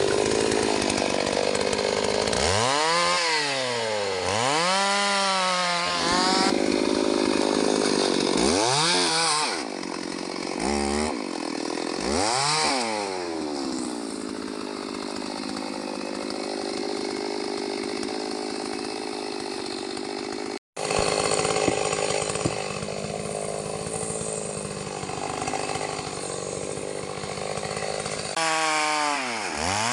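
STIHL MS 381 two-stroke chainsaw revving up and down several times, then running steadily at a lower pitch under load as it cuts through wood, with a brief dropout a little after the middle and more revving near the end.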